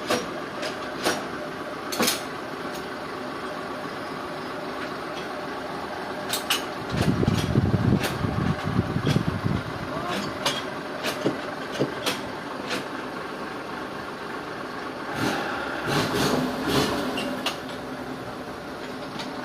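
An engine runs steadily, with scattered sharp knocks and clanks. A heavier low rumble swells for a few seconds in the middle, and there is another busier stretch near the end.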